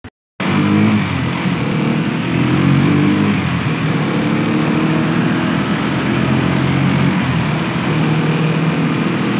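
Small vehicle engine running under way, its hum shifting up and down in pitch as it drives. The tank is almost out of gasoline, and the engine has just stalled.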